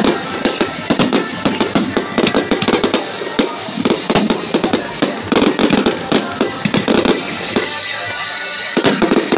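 Fireworks display: a dense, rapid run of crackles and bangs from exploding shells, thinning briefly near the end before picking up again.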